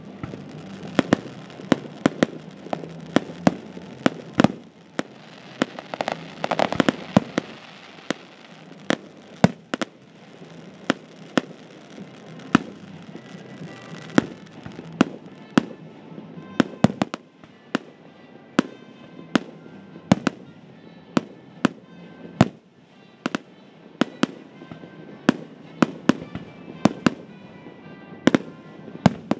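Fireworks display: aerial shells bursting one after another, sharp bangs coming a couple or more a second over a rolling rumble, with a dense flurry about six seconds in.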